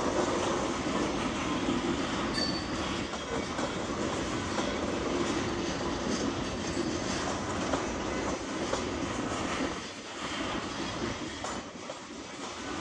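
Loaded coal gondolas of a slow freight train rolling past, steel wheels clattering over the rail joints, with a short high wheel squeal about two seconds in. The sound grows a little quieter near the end.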